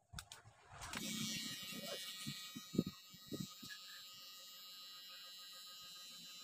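Electric hair clipper switched on about a second in and running with a steady buzz, with a few soft knocks from handling in the first few seconds.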